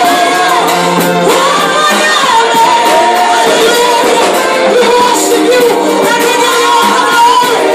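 Live church worship singing: several women's voices singing into microphones, amplified and loud, over electronic keyboard accompaniment.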